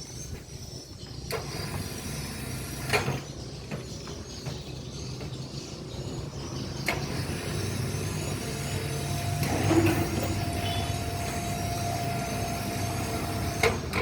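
A machine's engine running steadily, with a few sharp knocks and clicks; a thin steady whine joins in during the second half.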